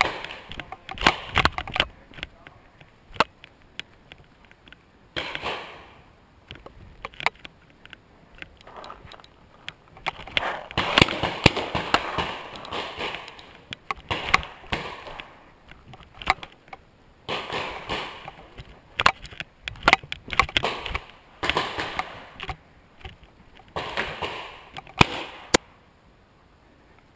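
Paintball markers firing in sharp pops, scattered through and sometimes in quick runs, with paintballs smacking into the wooden bunkers and props, interspersed with stretches of noisier movement.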